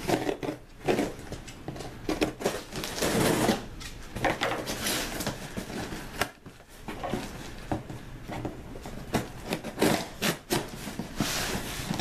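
Small knife blade slitting packing tape along a cardboard shipping box, with irregular scraping, rubbing and tearing as the tape and cardboard are worked open.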